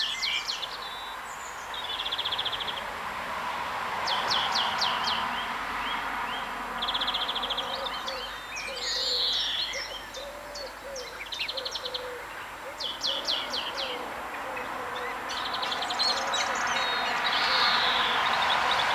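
Small songbirds singing in short high trills and chirps, a phrase every few seconds, over a steady background rush. Through the middle, a low wavering call repeats several times.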